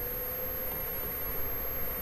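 Steady background hiss of the recording with a faint, steady hum; no speech.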